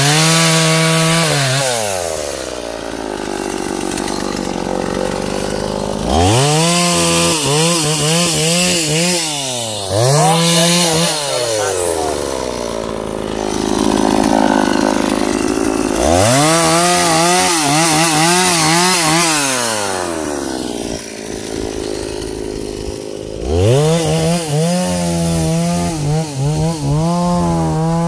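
Two-stroke chainsaw cutting a felled teak log. It revs to full throttle about five times for a few seconds each, the pitch sagging as the chain bites into the wood, and drops back to idle between cuts.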